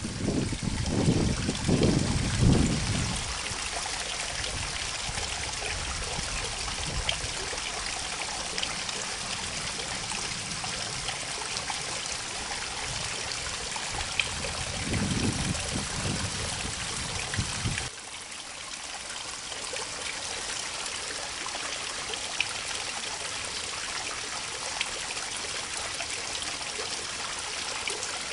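Water from a small channel trickling and pouring steadily into a creek, with brief low rumbles near the start and about halfway; it turns a little quieter about two-thirds of the way in.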